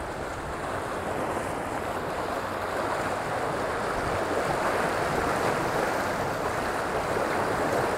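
Rushing, churning water of the propeller wash and wake behind the stern of an XShore all-electric boat under way, growing a little louder after a few seconds. No motor is heard: the electric drive is quiet enough that the propeller pushing water is the only noise.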